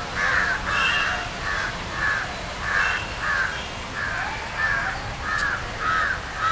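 Crows cawing in a steady run of short, harsh calls, about two a second.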